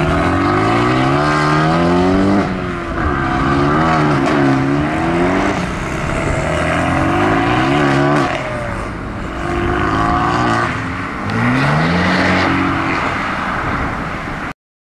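Modified car engines revving and accelerating away, the engine note climbing in pitch and falling back about five times. The sound cuts off suddenly near the end.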